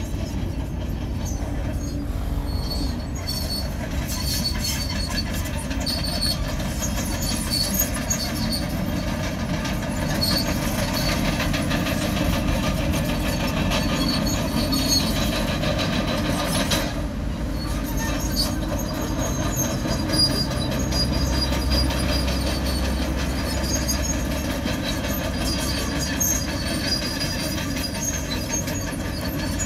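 Komatsu crawler bulldozer at work: a steady diesel rumble under the squealing and clanking of its steel tracks.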